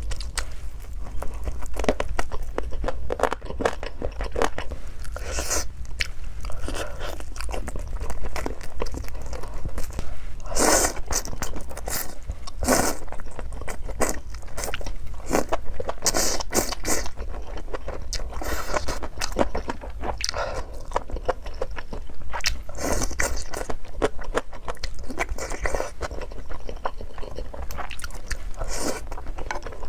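A person biting into and chewing crunchy food, making a run of sharp, irregular crunches and crackles.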